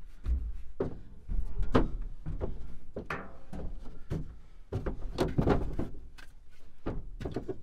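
Irregular thumps and knocks as a person climbs over the tailgate and crawls into a pickup truck bed under a canopy, knees and hands landing on the ribbed metal bed floor.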